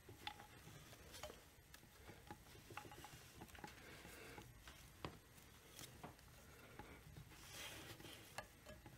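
Faint, irregular metallic clicks and light scraping from a seal puller's threaded screw being turned by hand as it draws the oil seal off a chainsaw crankshaft, with a brief soft rustle near the end.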